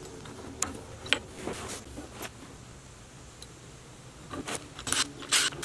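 Steel mounting bracket handled against a steel lally column: scattered light clinks and taps, then a run of louder scraping and rustling over the last second and a half.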